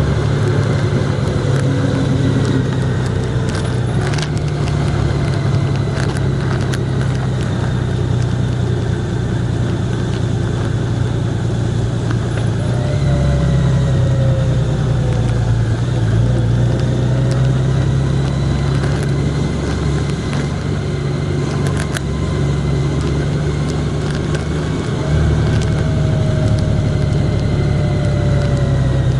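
Vehicle engine running steadily while driving along a road, its note shifting a couple of times as the speed changes.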